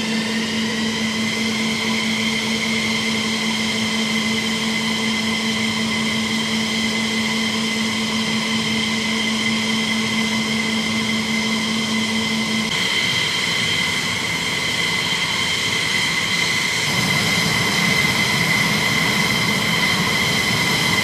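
Twin Pratt & Whitney F100 turbofan engines of an F-15E Strike Eagle running at ground idle: a steady high-pitched turbine whine that rises slightly in pitch in the first couple of seconds, over a lower steady hum that stops about halfway through.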